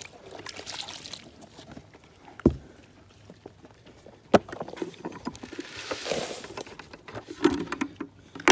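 Two sharp knocks, then a short hiss of dry feed poured into a black rubber feed pan about six seconds in, followed by a few thumps near the end.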